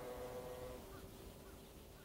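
A distant vehicle engine with a steady tone, fading away and dying out within the first second, leaving faint outdoor background.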